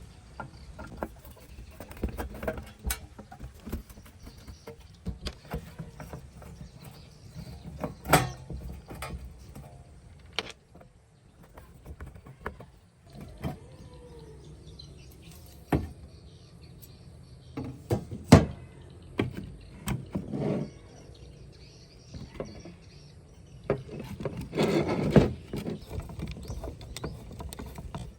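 Irregular knocks, clicks and rattles over a low rumble, with the sharpest knock about 18 seconds in and a longer rattling stretch near 25 seconds.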